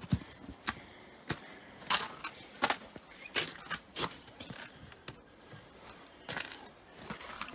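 Footsteps of a person walking, a sharp step about every two-thirds of a second.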